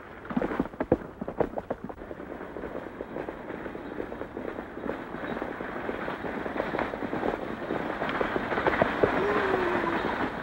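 Galloping hooves and the rattle of a horse-drawn stagecoach as it approaches, the clatter growing denser and louder toward the end. A few sharp, loud clatters stand out in the first two seconds, and a short wavering call comes near the end.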